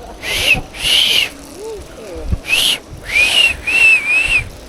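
Bicycle brakes squealing on wet rims in six short, high-pitched squeals with a hiss, each a third to half a second long, coming in uneven bursts.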